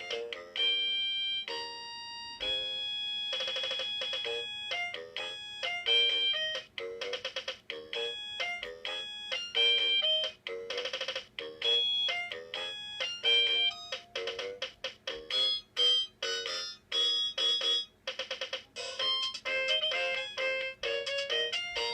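Anpanman NEW Pikapika Keyboard toy keyboard playing one of its built-in demo songs: a quick melody of short electronic notes with accompaniment, ringtone-like in tone, with a few passages of rapid warbling notes.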